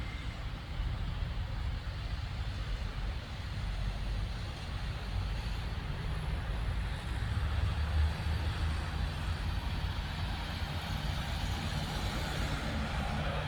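Steady outdoor background noise: a continuous low rumble under an even hiss, with no distinct claps or strikes.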